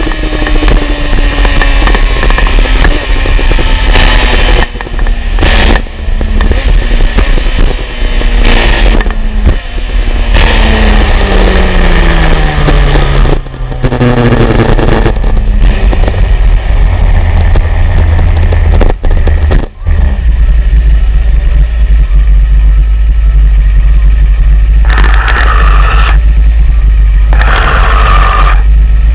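Honda sport bike's engine running with its revs falling as it slows, stepping down in pitch a few times as it changes down, heard from an on-board camera. Heavy wind rumble on the microphone runs under it.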